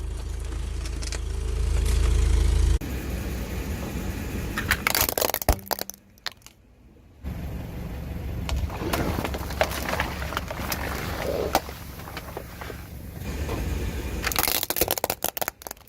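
Car tyre rolling over and crushing objects, with sharp cracks and crunching over the car's low engine rumble. The sound cuts abruptly between clips, with a short near-silent gap in the middle.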